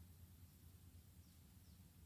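Faint, short, high bird chirps falling in pitch, two in the second half, over a steady low hum.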